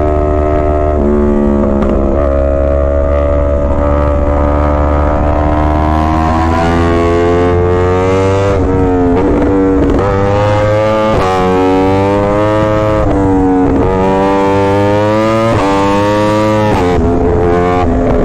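Yamaha R1 inline-four engine running hard under load, its pitch climbing steadily and then rising and dropping sharply again and again, like repeated gear changes and throttle roll-offs.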